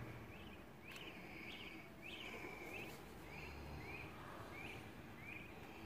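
A bird chirping in a steady series of short, high notes, a little under two a second.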